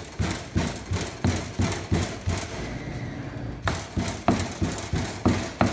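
Bottom of a stainless steel pot thumping repeatedly onto a pile of fresh herbs on a plastic cutting board, bruising the leaves to release their oils. A quick run of about eight blows, a pause of about a second, then a few more spaced out.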